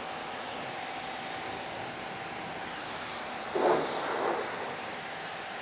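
Water hissing steadily from a hose spray gun, rinsing foam and degreaser off an engine bay, with a brief louder burst about three and a half seconds in.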